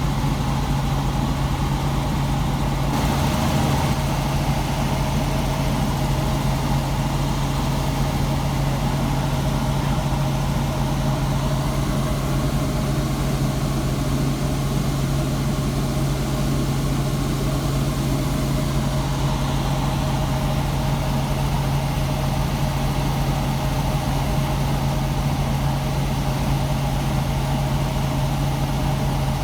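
A vehicle engine running steadily: a constant low hum whose pitch does not change.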